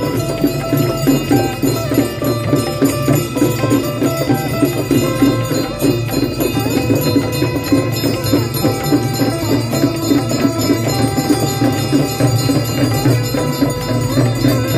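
Hindu devotional aarti music: a held melody stepping from note to note over fast, steady percussion and bells.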